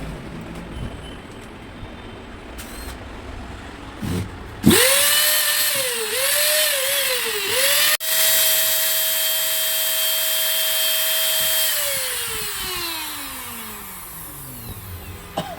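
Hitachi 4-inch angle grinder switched on: a high motor whine spins up fast, dips in speed a few times, then runs steady for a few seconds. It is switched off and winds down smoothly over about three seconds.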